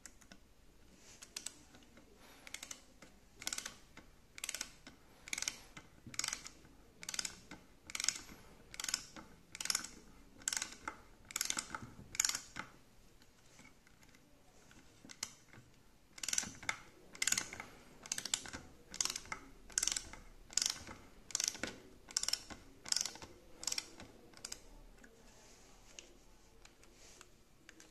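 Ratchet screwdriver with a right-angle head driving a screw into wood: a short rasp of ratchet clicks on each back-stroke, repeating about one to two times a second. It pauses for a few seconds in the middle, then resumes and stops a few seconds before the end.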